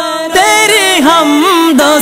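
Male voice singing a devotional hamd melody without instruments, the line bending and wavering in pitch over a steady held tone beneath. The sound dips briefly at the very start, then the singing comes back in.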